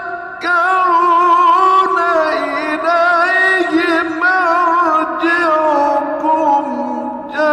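A male Quran reciter chanting in the melodic, ornamented mujawwad style, holding long notes whose pitch wavers and turns. A new phrase begins right at the end.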